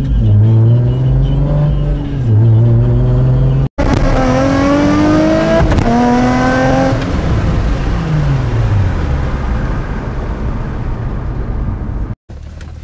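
Nissan 350Z's 3.5-litre V6 heard from inside the cabin under hard acceleration. The engine pitch climbs, drops at upshifts about two and six seconds in, and climbs again. After that the engine falls away as the throttle is lifted, leaving tyre and wind noise.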